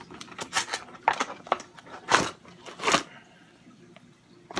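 Plastic packaging crackling and crinkling as it is pulled open, in a run of sharp rustles for about three seconds with the loudest two near the end of that run. Then it falls quiet except for a single click.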